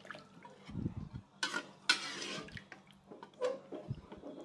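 A spatula stirring chicken pieces through watery spice broth in a wok: a few short scrapes and sloshes, the longest about two seconds in.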